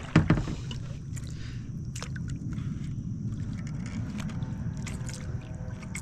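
Sit-on-top kayak on calm water: a splash and a sharp knock against the hull near the start, then a steady low rush of water and wind with a few light clicks and taps of handled gear.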